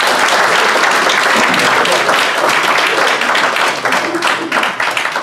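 Audience applauding: a dense, loud patter of many hands clapping, thinning toward the end.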